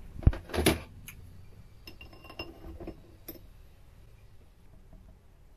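Metal tools and parts being handled at a stopped mini lathe: a sharp knock, a brief scrape, then a few light metallic clinks with short rings.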